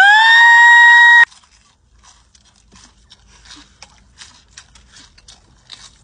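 A loud high-pitched squeal that rises in pitch, is held for about a second, then cuts off. Then faint crunching and chewing as a man bites into a crispy fried chicken tender.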